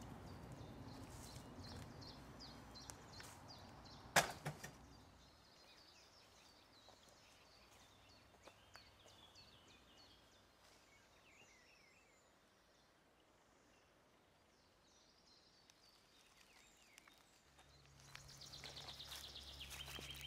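Quiet outdoor ambience with faint bird chirps and one sharp knock about four seconds in. Near the end come footsteps rustling through dry leaf litter.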